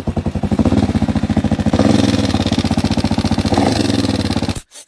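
Motorcycle engine running with an even rapid pulse, carrying a strange noise that nearly damaged the engine; it is shut off and cuts out suddenly near the end.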